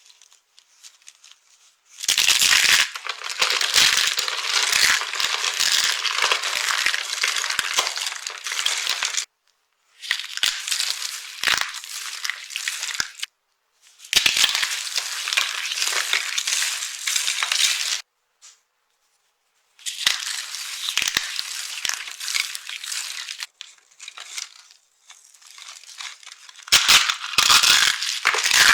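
Dry soap being crushed and crumbled, crisp crunching in several separate bouts with short pauses between them.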